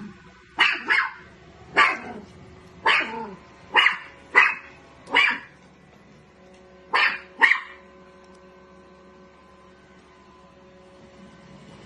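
A dog barking angrily at a vacuum cleaner: nine sharp barks, singly and in quick pairs, over about seven seconds, then it stops.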